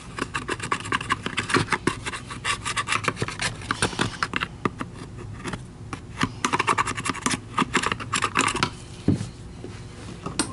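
Screwdriver blade scraping grime out of the plastic housing of a Filter Queen Majestic vacuum power head in quick, rapid scratching strokes, pausing briefly about halfway and thinning out near the end. The grime looks like the housing got wet inside at some point.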